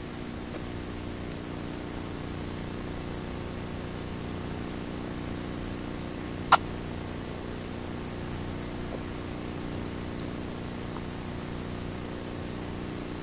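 A steady low hum over a light hiss, with a single sharp click a little past halfway.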